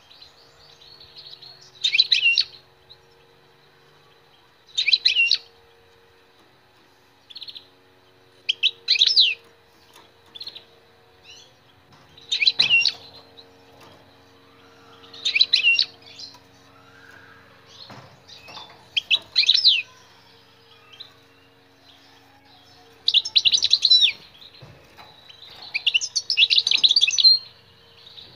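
European goldfinch singing: short, high twittering phrases every two to three seconds, running into longer, denser phrases near the end.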